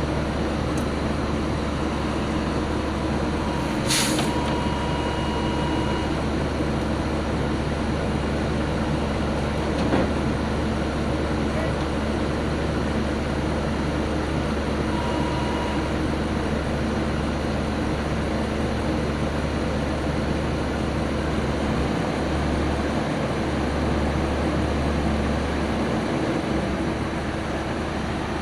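Heavy diesel engine running steadily at a low rumble, with a short sharp air hiss about four seconds in and a single knock about ten seconds in.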